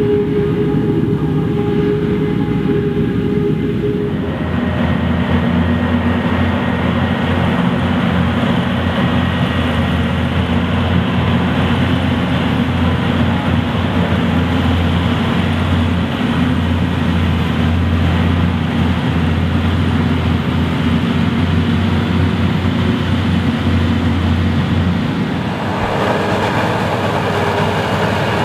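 Krone Big X 850 forage harvester and tractors working in a maize field: a steady, loud, deep engine drone with the rush of the chopping header. The sound changes character about four seconds in and again near the end.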